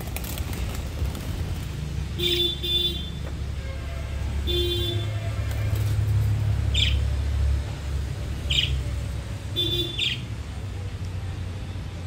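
Budgerigars chirping: five short calls a couple of seconds apart, some with a buzzy ring and some dropping quickly in pitch, over a steady low rumble.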